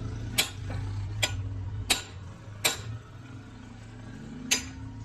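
Five sharp metallic taps at irregular intervals, roughly a second apart, over a steady low hum of workshop machinery.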